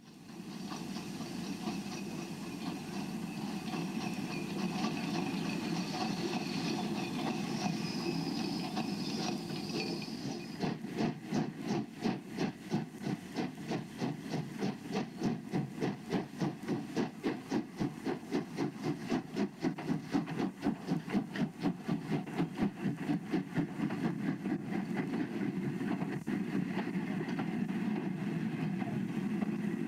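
Steam train running: a steady rumble and hiss, then from about a third of the way in a regular beat of about three or four pulses a second as the locomotive works past, easing back to a steady rumble near the end.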